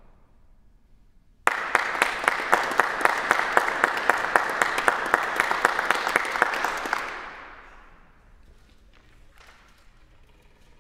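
Several musicians clapping their hands as part of the piece: dense, applause-like clapping with sharper accented claps about four times a second. It starts abruptly, then fades out after about five and a half seconds.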